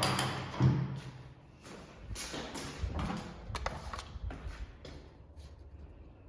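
Two heavy thuds, then an irregular run of lighter knocks and clatter that fades out after about four and a half seconds: impact noise from a neighbouring apartment.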